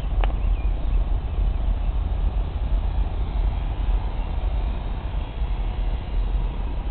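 Wind buffeting the microphone: a steady low rumble, with one sharp click right at the start.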